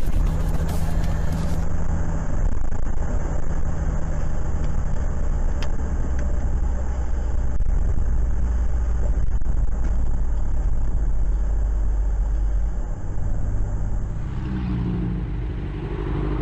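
Steady low rumble of road, tyre and engine noise heard inside a car driving on a wet highway. About two seconds before the end it gives way to a motorcycle engine running with a steady pitched note.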